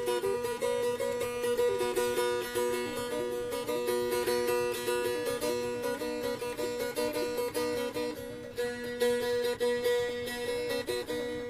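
T'boli plucked string instrument playing a fast, repetitive melody over a steady unchanging drone note.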